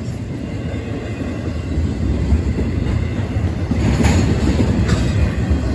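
A long CSX intermodal freight train rolling past at speed: the steady low rumble of its cars' wheels on the rails, with a few brief sharper rattles about four seconds in.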